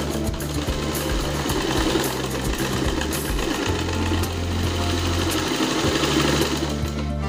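An old motor-driven sewing machine runs steadily, stitching green tarpaulin fabric, and stops near the end.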